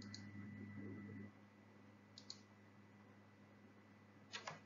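Near silence with a low steady hum, broken by faint computer mouse clicks: one at the start, a quick pair about two seconds in, and another pair near the end.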